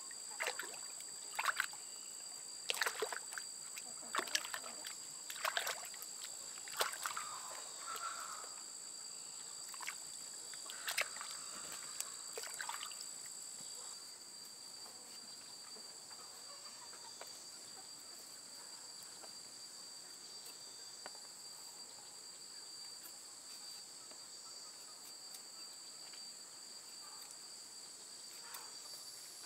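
Water splashing and sloshing as a jicama root is scrubbed by hand in a shallow stream, in repeated splashes over roughly the first half. A steady high-pitched insect drone runs underneath and is all that remains after the splashing stops.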